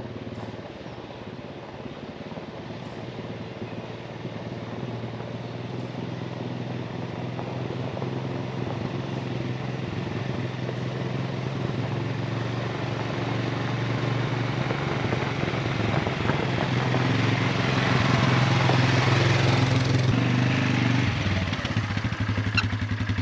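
Polaris 570 ATV's single-cylinder engine running as the quad drives up a gravel track, growing steadily louder as it approaches, with tyres crunching on gravel. The engine note drops about two seconds before the end as the ATV slows to a stop.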